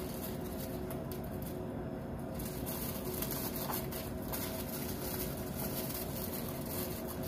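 A steady hum with several faint steady tones, at an even level throughout.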